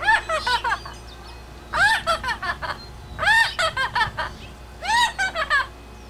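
Blue-fronted Amazon parrot calling in four quick bouts, each a rapid string of short, pitched notes that rise and fall.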